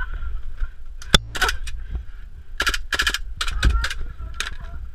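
Airsoft guns firing a string of single shots and short rapid bursts at close range, with a sharp crack about a second in.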